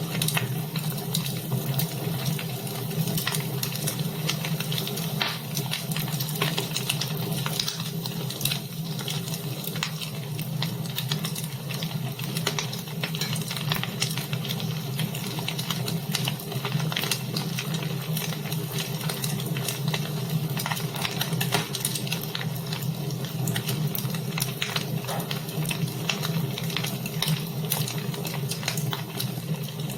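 Wood fire burning in a fireplace, crackling and popping with many small irregular snaps over a steady low hum.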